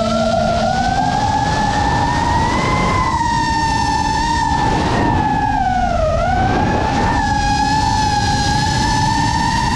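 FPV quadcopter's brushless motors whining with a single high tone that rises and falls with the throttle, dipping sharply about six seconds in and climbing back. A noisy low rumble runs underneath.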